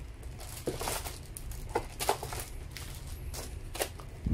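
Clear plastic wrap around a hammer drill crinkling and rustling in short, irregular crackles as hands handle it.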